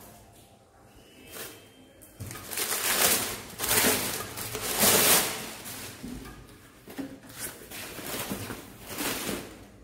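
Brown wrapping paper and plastic bubble wrap crinkling and rustling as they are pulled off a chrome bar-stool base, loudest in a few long rustles in the middle, with shorter ones near the end.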